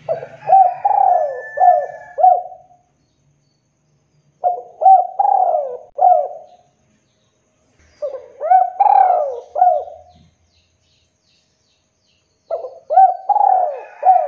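Spotted dove cooing: four phrases of four or five quick coos each, a new phrase every four seconds or so.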